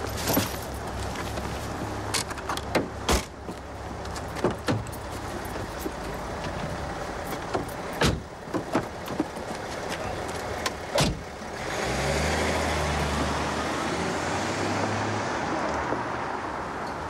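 A run of sharp clicks and knocks from a car being handled: boot, bag and door, with a loud door shutting at about 11 seconds. Right after, about 12 seconds in, a BMW 5 Series saloon's engine starts and runs steadily as the car pulls away.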